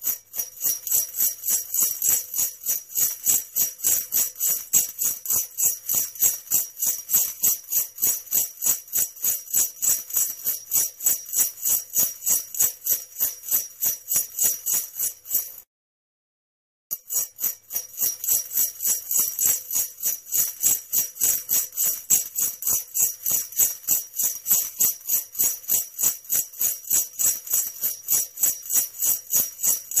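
Sleigh bells jingling in a steady shaking rhythm, about four shakes a second. They stop for about a second midway, then start again.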